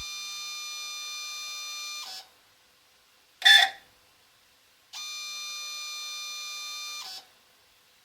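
Apollo DIC C5 analyser's multisampler valve screeching as it switches inputs during a valve-cleaning cycle, an abnormal noise from the valve. It gives a steady, high-pitched screech of about two seconds, a short sharp burst midway, then a second two-second screech.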